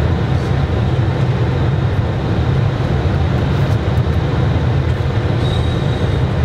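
Steady flight-deck noise of an Airbus A320 on approach: a constant low rumble of airflow and engines, even in loudness throughout.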